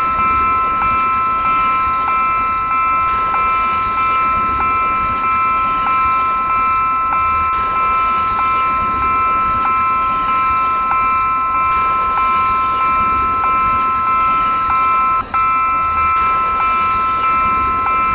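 A toy train running, its electronic horn held as a steady high chord of several tones over a regular clicking about one and a half times a second. The chord breaks off for a moment near the end.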